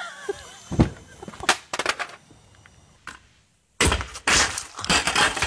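A few sharp cracks or knocks, then a short near-silent gap, then a noisy clattering crash with several hard knocks, as of a fall onto stone steps.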